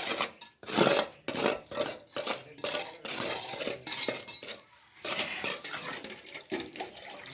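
Metal tools and pans scraping and clanking on wet concrete during a floor slab pour: a rapid, irregular run of scrapes and knocks, easing briefly a little before the midpoint of the last half.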